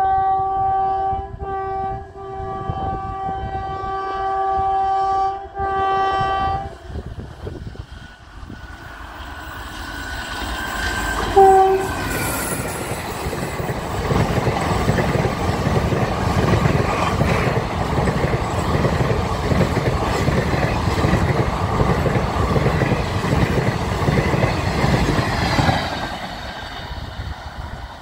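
WAP-4 electric locomotive's horn sounding long and steady with a few short breaks as the express approaches at about 105 km/h, then one short blast about 11 seconds in. The train then passes at speed, its coach wheels clattering over the rails, and the noise fades near the end.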